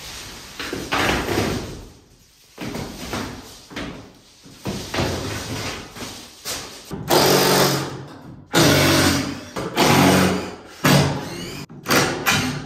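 Handheld power tool run in repeated short bursts of about a second each, starting and stopping with brief pauses between.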